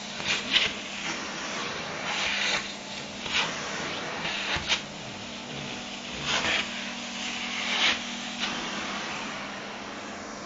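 Vacuum cleaner running steadily with a low hum, its nozzle sucking at and rubbing over a nylon down jacket, giving a louder swishing rustle every second or two.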